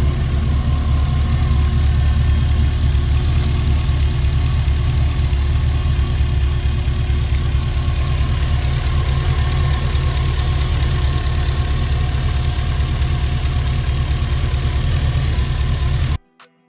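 GM LS V8 engine idling steadily on its standalone harness, running smoothly without skipping on freshly replaced fuel injectors, which the owner takes as the cure for its misfire. The sound cuts off abruptly near the end.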